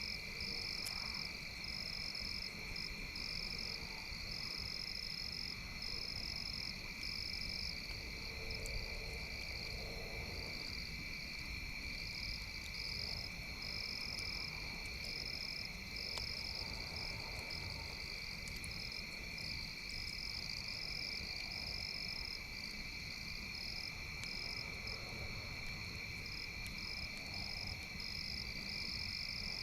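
Chorus of frogs and insects: a steady high trill with a second, higher call pulsing on and off throughout, over a low rumble, with a few faint pops.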